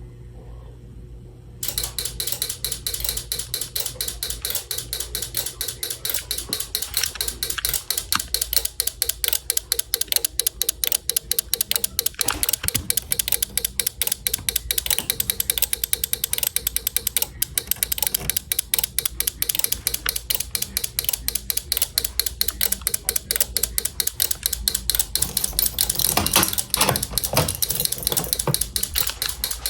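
Rapid, even clicking, several clicks a second, that starts suddenly about a second and a half in and keeps going: a hobby fire alarm circuit going into alarm during a silent test with its horns switched off.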